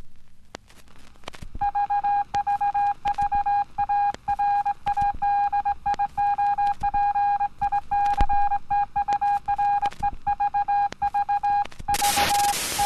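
Steady broadcast test tone behind a "Please Stand By" card: one held pitch with a few fainter overtones, starting about a second and a half in, broken all through by crackling clicks and brief dropouts. Near the end loud television static hiss comes in under the tone.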